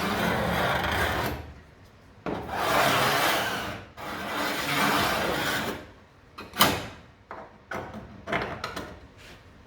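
Scribe scratching a marking line along the steel of a car's rear wheel arch, in three long scraping strokes, followed by a few short sharp knocks of metal, the loudest about two-thirds of the way through.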